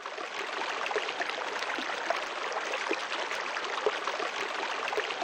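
Running water, steady and trickling, with small bubbling gurgles scattered through it.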